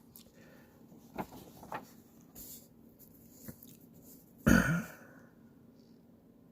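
A few faint clicks and small handling noises, then a man clears his throat once, briefly, about four and a half seconds in.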